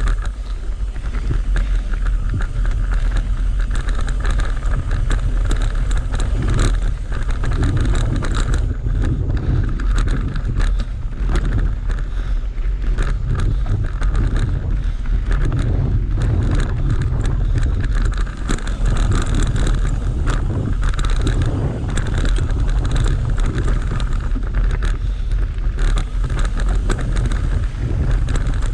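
Mountain bike riding fast down a dirt singletrack: wind buffeting the microphone, with tyre rumble and frequent short rattles and knocks as the bike goes over roots and rocks.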